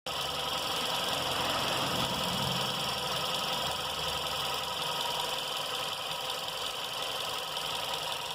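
Volkswagen Touran (1T3) engine idling steadily, its sound recorded to document the engine noise.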